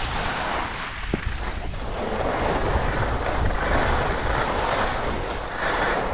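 Wind buffeting the microphone of a helmet-mounted camera during a downhill ski run, a low rumble, with the skis hissing and scraping over the snow in swells.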